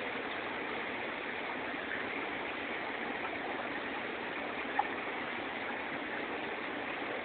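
Steady rush of circulating water from aquarium tanks' filters and aeration, with one short tick about five seconds in.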